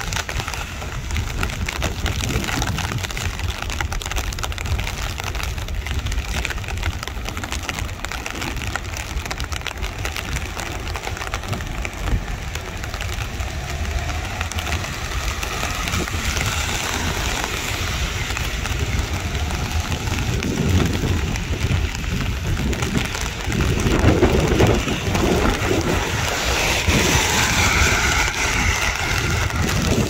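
Heavy rainforest rain falling steadily, a dense even hiss with a low rumble underneath. The downpour swells louder a little past the three-quarter mark.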